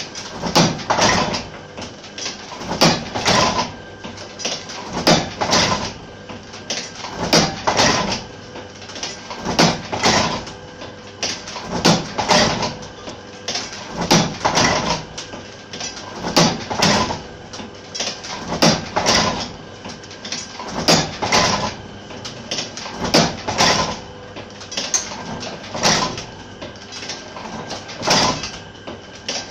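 A 50-year-old platen letterpress running, its platen and ink rollers opening and closing in a steady clanking rhythm of about one cycle every two seconds. Each cycle is a cluster of metal clanks and knocks.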